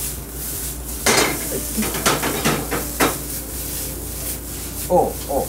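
Rice frying in a hot steel frying pan, sizzling, while a metal ladle strikes and scrapes the pan. A run of sharp clatters comes between about one and three seconds in.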